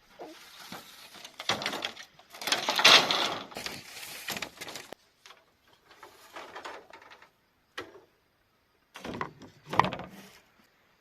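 Irregular scraping and knocking, with a dense rasping stretch in the first half, then a few sharp knocks near the end.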